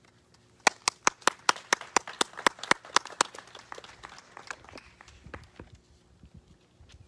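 A few people clapping by hand: quick, fairly even claps begin just under a second in, then thin out and fade over several seconds.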